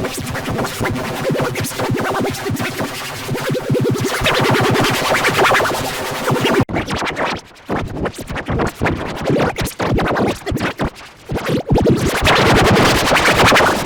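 Heavily processed electronic audio effect, musical and dense, chopped rapidly into stuttering, scratch-like fragments. It cuts off abruptly about seven seconds in and resumes in choppier bursts.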